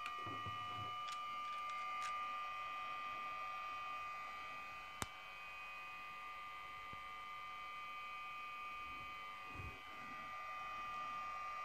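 The sound decoder of an HO-scale Atlas ALP-45DP model locomotive plays a steady electric hum made of several held tones through its small onboard speaker. This is the dual-mode locomotive's electric-power sound, heard once its simulated diesel motors have been shut down. A single sharp click comes about five seconds in.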